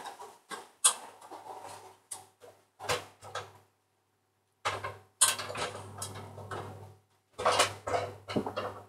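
Rustling and shuffling in about five bursts with short silent gaps: a beanbag being dragged, shifted and pressed about close to the microphone.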